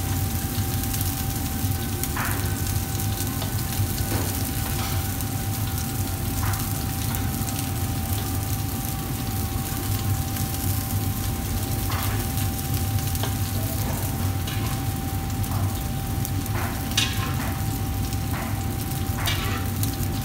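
A wok of sauce cooking over a gas wok burner, with a steady low rush of flame and a sizzle, and a metal ladle knocking and scraping against the wok now and then, several times in quick succession near the end. A steady thin tone hums underneath.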